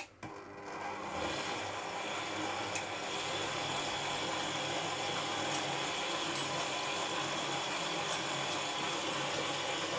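Electric stand mixer switched on with a click, its motor coming up to speed over the first second and then running steadily with a hum and whine as the dough hook turns through dry flour mix.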